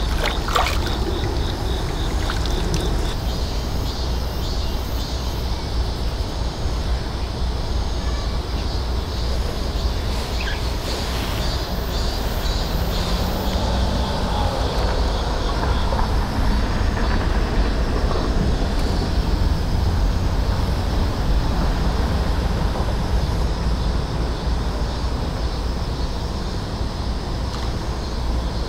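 Wind buffeting the microphone, a steady low rumble with an even rush over it. Faint insects chirp in a fast repeating pulse at the start and again near the end.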